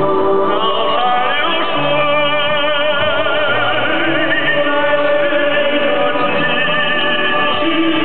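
Stage music: operatic-style singing with a wide vibrato, holding long notes over a sustained accompaniment.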